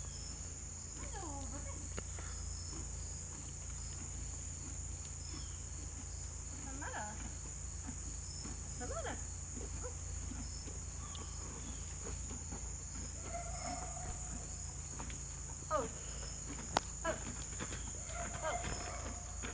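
Steady high-pitched insect chorus droning throughout, with a faint regular chirp repeating beneath it. A few faint scattered sounds, and one sharp click near the end.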